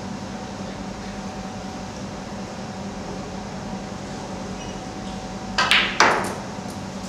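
A snooker shot: two sharp clicks about half a second apart, the cue tip striking the cue ball and then the cue ball hitting an object ball, the second louder. A steady room hum runs underneath.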